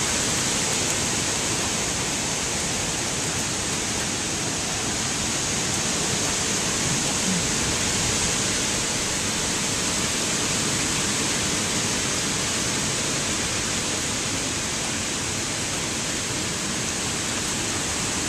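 Hurricane wind blowing through leafy trees: a steady rushing noise that swells slightly now and then.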